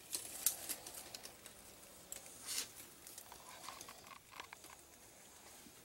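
Faint scratching and rustling of dry straw and loose coconut-coir substrate as baby Russian tortoises and a hand move over it, with a few sharp crackles in the first three seconds and softer ticks after.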